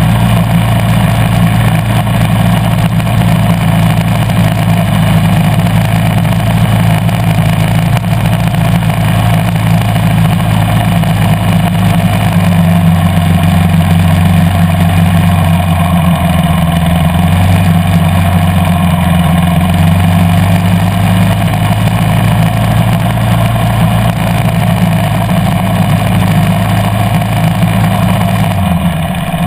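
2013 KTM 350 EXC-F's single-cylinder four-stroke engine running loud and steady as the bike is ridden along. Its note shifts in pitch about twelve seconds in and again a few seconds later, and dips briefly just before the end.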